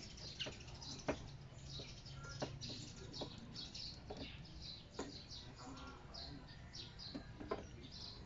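Small birds chirping over and over, short high calls throughout. Scattered sharp plastic clicks and taps from a wiring connector and an LED fender signal light being handled and pressed into its socket in a car's fender, loudest about a second in and near the end.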